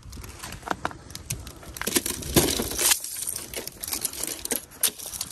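Irregular sharp clicks, clinks and crunches, thickest about two to three seconds in, over a low rumble.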